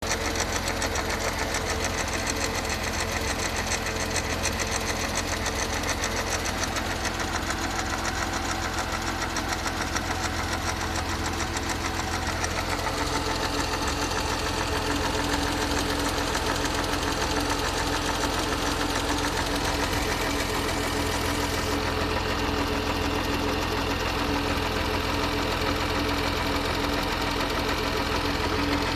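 A vehicle's engine running steadily with a fast, continuous knocking or rattling, which the owner puts down to the gearbox (manual transmission).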